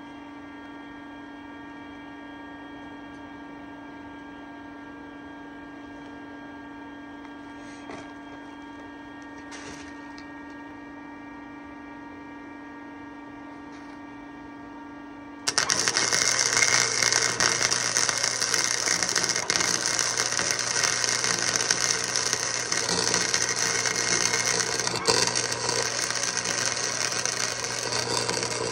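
A flux-core wire welder hums steadily. About halfway through, the arc strikes and the steady loud crackle and sizzle of flux-core arc welding takes over as a bead is laid on a steel exhaust downpipe.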